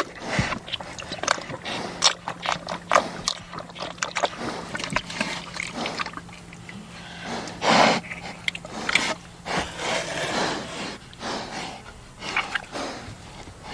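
Pigs grunting and snorting in a run of short, irregular sounds, the loudest about eight seconds in. A steady low hum runs underneath and stops about ten seconds in.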